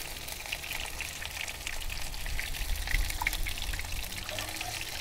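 Battered fish fillets shallow-frying in hot oil in a frying pan: a steady sizzle of many tiny crackles and pops, over a low rumble.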